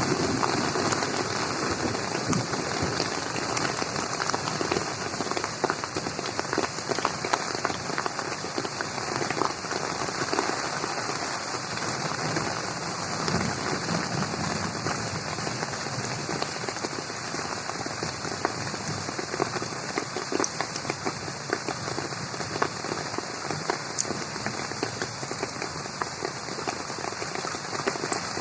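Steady rain falling on a garden pond, with many separate drops ticking through a continuous wash of rain noise.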